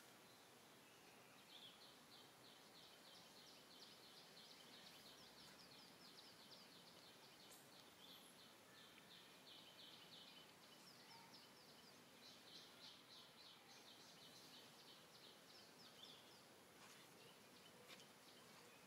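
Faint outdoor ambience with a bird chirping high and fast: long runs of about seven quick notes a second that break off and start again.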